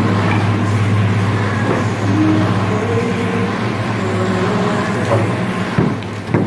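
Steady low machine hum with a constant pitch, with a couple of sharp knocks near the end.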